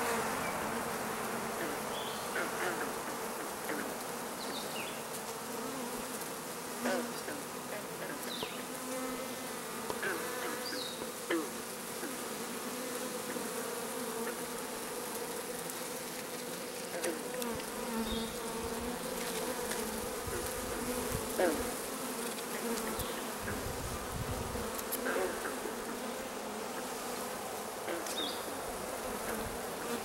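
Honey bee swarm buzzing: a steady, dense hum from the wingbeats of many bees clustered together.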